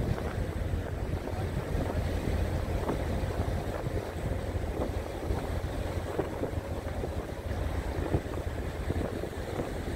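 Wind buffeting the microphone over a steady low rumble of boat engines and splashing water, heard from the deck of a moving boat.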